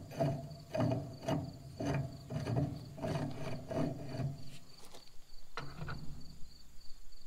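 A hand tap cutting threads into the Farmall H tractor's cast-iron manifold, turned by hand and wrench in short strokes. It makes a repeated scraping squeak of metal on metal about twice a second, then thins to a few clicks after about four and a half seconds.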